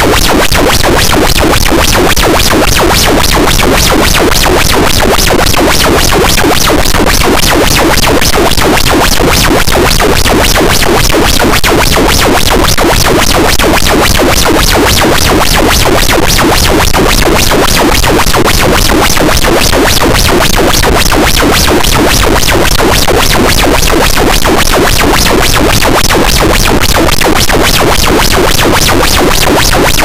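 Harsh noise wall: a loud, dense, unchanging wall of distorted noise filling every pitch from deep rumble to hiss, with a rapid, even pulsing running through it.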